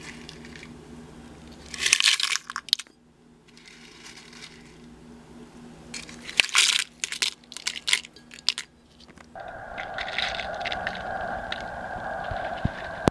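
Handfuls of dried red serrano chiles dropped into a plastic blender jar, crackling and rattling against the plastic in two bursts, one about two seconds in and a longer one a few seconds later. A steady hum starts about nine seconds in.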